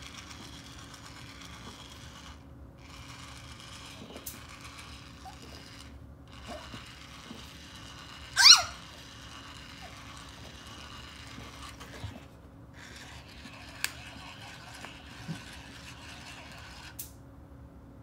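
Whirring motor of a battery-powered rolling cat toy ball, running in stretches with a few short pauses and stopping near the end. About halfway through a loud, short rising squeak sounds, the loudest thing here, with a few light clicks.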